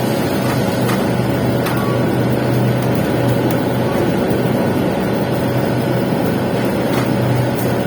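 Welding arc running continuously on a pipe capping pass: a steady crackling hiss over a low electrical hum.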